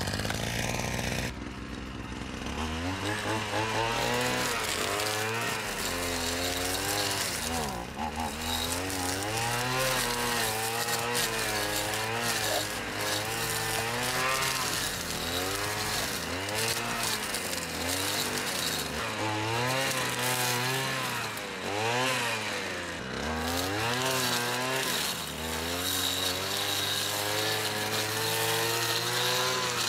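Petrol brushcutter engine revving up and down every few seconds, its spinning nylon trimmer line cutting through ivy and undergrowth, with brief drops in revs at several points.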